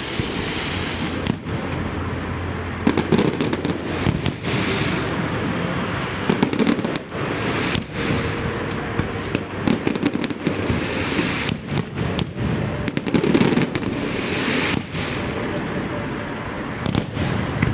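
Fireworks display going off in a continuous barrage: many sharp bangs in quick succession over a steady crackling rumble.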